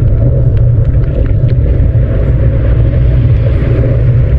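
Heavy wind noise buffeting the microphone of a camera on a moving bicycle: a loud, steady low rush with no pitch to it.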